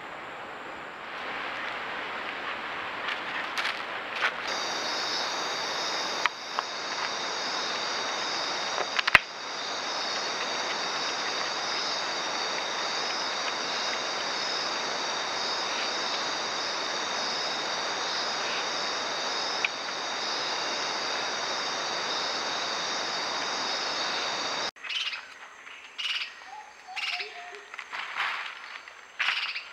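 Steady night chorus of rainforest insects: a dense hiss with high shrill trilling bands that cuts off suddenly near the end. Then come scattered short bird chirps with light clicks and rustles.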